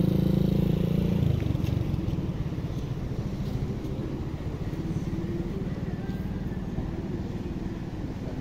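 An engine running at a steady pitch, loud for about the first second, then dropping away to a fainter steady hum.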